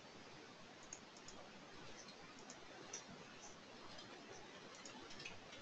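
Near silence: faint room hiss with a few soft, scattered clicks.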